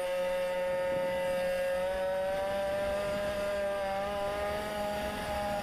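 40cc water-cooled two-stroke racing minibike engine running flat out at high revs, heard from on board, its pitch creeping slightly upward.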